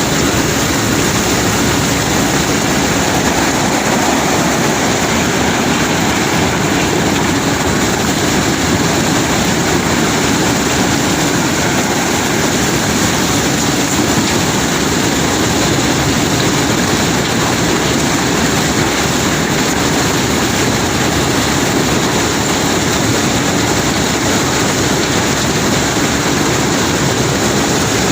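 Heavy unloading machinery on a cobblestone barge running steadily: a constant, loud engine-and-machine noise with no breaks and no distinct knocks.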